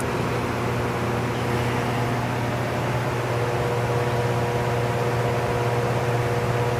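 Acra/Leader 17" x 55" engine lathe running with a steady low hum and several steady higher tones; a further higher tone joins about three seconds in.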